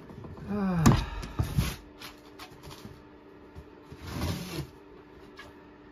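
Heavy cardboard boxes being lifted and set down: a strained grunt falling in pitch, then a loud thump about a second in and a few lighter knocks. Another short grunt comes near four seconds, over a faint steady hum.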